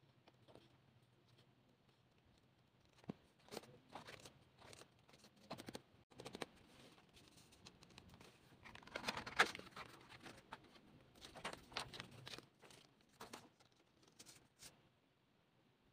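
Paper and card rustling, with light taps and flicks, as the album's photobook, photocards and paper inserts are handled. A denser stretch of rustling comes about nine seconds in, with scattered flicks before and after.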